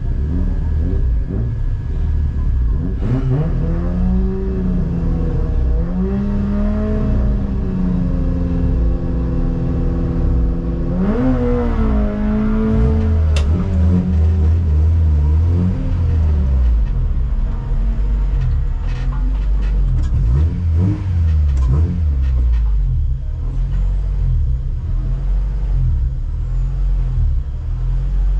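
Race-prepared Honda Civic VTi's 1.6-litre four-cylinder engine heard from inside the stripped, caged cabin. It is revved up and held steady at the start line, then climbs sharply as the car launches, and rises and falls through the gear changes while pulling away hard.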